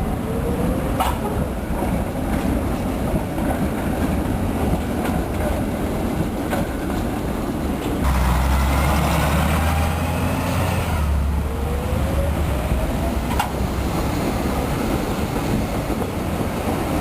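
Brussels 7900-series tram running on rails with a steady rumble. About halfway through it gets louder, and a rising motor whine is heard as the tram picks up speed, with an occasional click from the wheels or track.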